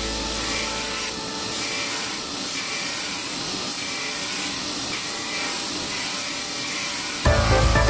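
Belt grinder's abrasive belt grinding the bevel of a high-speed-steel knife blade held in a bevel jig, a steady hiss. Music comes in near the end.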